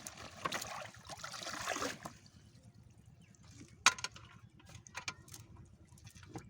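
Water splashing and trickling for about two seconds, then quieter, with a few sharp clicks and taps.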